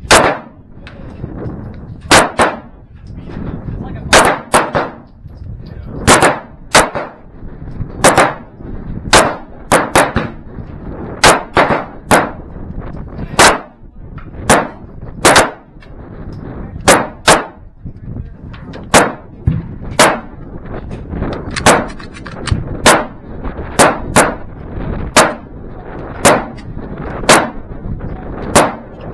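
Gunshots fired one at a time at an uneven pace, about one a second and sometimes two in quick succession, each with a short echo.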